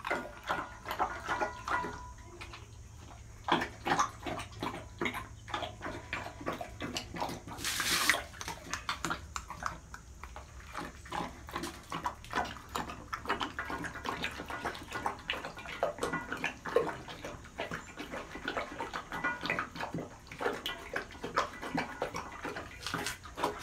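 A dog lapping and slurping runny ragi malt porridge from a stainless steel bowl, as a long run of quick, irregular wet laps.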